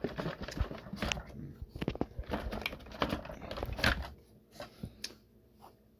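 Plastic clicks, rattles and knocks from hands working the latches and body of a switched-off Shark Multivac NH15 vacuum while trying to release its canister body. The handling is busy for about four seconds, then only a few scattered clicks.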